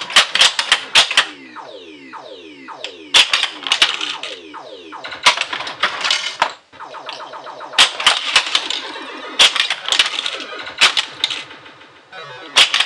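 1980 Williams Black Knight pinball machine in play: sharp clacks of the flippers and coils and the steel ball striking targets, repeated all through, over the game's electronic sound effects, including tones that fall in pitch.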